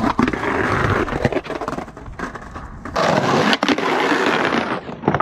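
Skateboard wheels rolling over rough concrete, a continuous rumble broken by many short clacks; about three seconds in the sound changes abruptly and rolls on.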